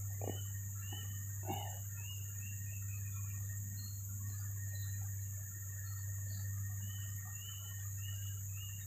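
Riverside ambience: insects drone steadily and high, and a bird calls in a repeated series of short notes, about two a second, near the start and again near the end, over a steady low hum. A few soft knocks in the first couple of seconds come from handling on the bank.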